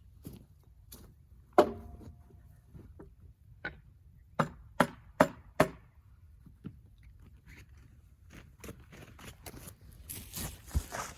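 Sharp knocks on wood: one loud knock, then a quick run of four about half a second apart, with some scuffing and handling noise near the end.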